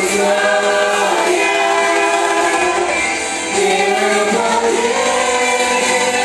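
Gospel worship group singing together in chorus, with long held notes that change pitch every second or so.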